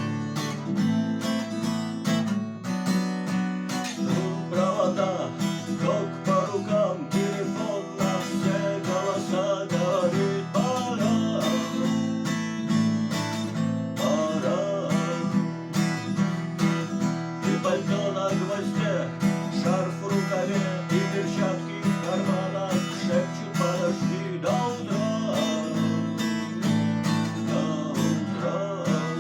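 Acoustic guitar strummed steadily in chords. From about four seconds in, a wavering melody line runs above the chords.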